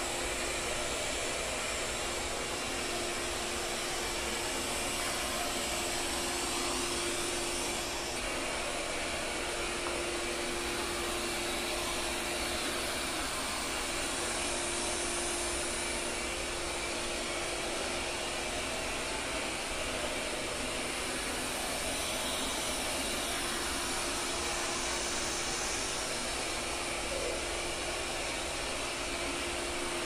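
Lydsto W2 robot vacuum running as it cleans a tile floor: a steady whir with a constant hum.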